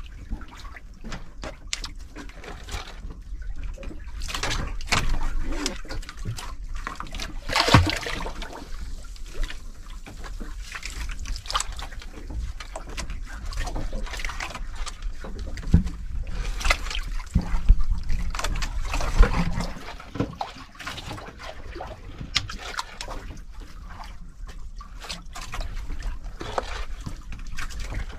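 Sea water sloshing and splashing against the hull and outrigger floats of a small outrigger fishing boat, uneven throughout, with sharper splashes and knocks now and then. The loudest of these come at about 8 seconds and again around 16 to 19 seconds in.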